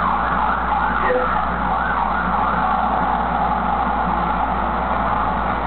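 Sirens wailing, a steady band of overlapping high wavering tones, over a low electrical hum, as played through a TV speaker.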